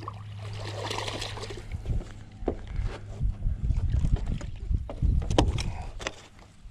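A hooked largemouth bass splashing at the water's surface beside a dock in the first second or so, then a few sharp clicks and knocks over a low rumble as the fish is led in and landed.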